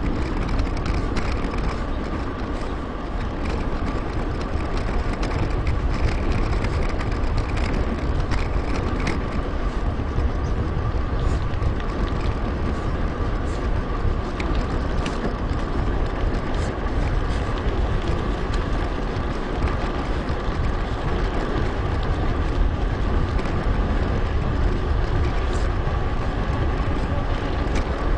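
Wind rushing over an action camera's microphone and a mountain bike's tyres and drivetrain rolling along a paved path, with a steady faint whine throughout, sped up.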